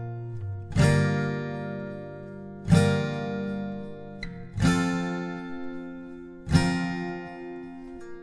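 Background music: slow acoustic guitar chords, four strums about two seconds apart, each left to ring out and fade.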